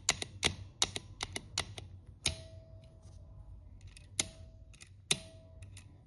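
Metallic clicks of a door dead latch being worked by hand: a quick run of sharp clicks, then three single clacks, each followed by a faint short metallic ring.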